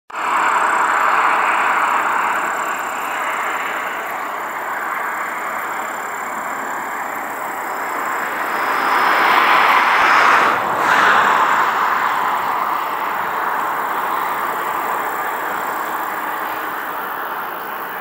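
Road traffic: the steady rush of car tyres on asphalt, swelling about halfway through as a car passes.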